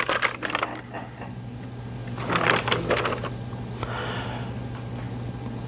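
A steady low electrical hum, with faint scattered rustling around the middle.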